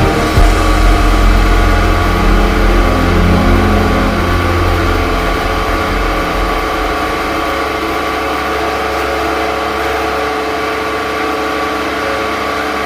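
Commercial masala grinder running steadily: a loud motor hum with several steady tones over a deep rumble, which eases after about five seconds.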